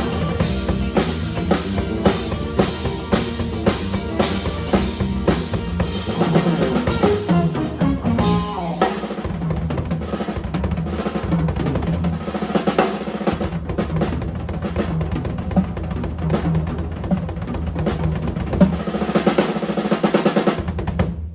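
Drum kit played in a busy solo of snare rolls, rimshots and bass drum, over a backing track with a bass line, cutting off abruptly at the very end.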